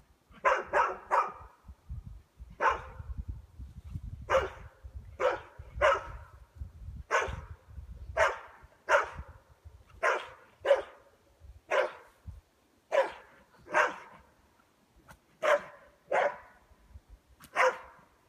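A dog barking over and over: single sharp barks about a second apart, with a quick run of three at the start.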